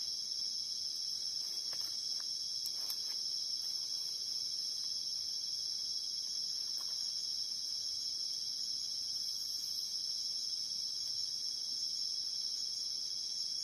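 Steady high-pitched chorus of night insects, crickets among them, calling without a break, with a few faint clicks about two to three seconds in.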